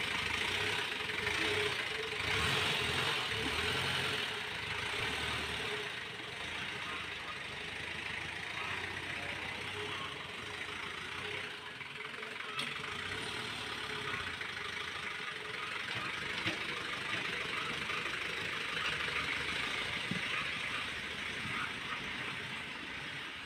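Diesel engine swapped into a Daihatsu Feroza in place of its petrol engine, running steadily as the vehicle stands and then drives off; it is louder for the first few seconds.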